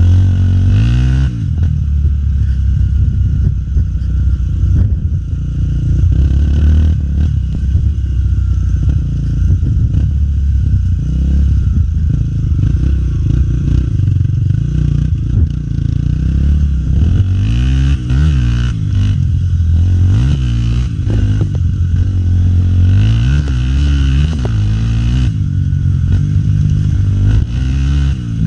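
Honda Tornado trail motorcycle's single-cylinder four-stroke engine under way, revving up and easing off again and again as it is ridden, with sharper rises a second in and again in the later part.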